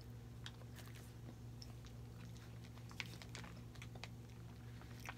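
Faint chewing of Lunchables crackers, with scattered small clicks, over a steady low hum.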